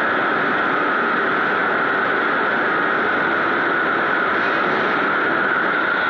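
Steady, loud machinery din of a steel mill hall, with a continuous high-pitched hum running through it.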